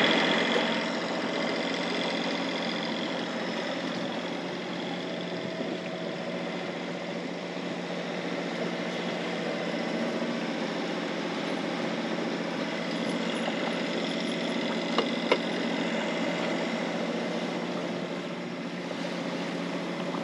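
A sailboat's inboard diesel engine running steadily, a constant hum, with two light clicks about three quarters of the way through.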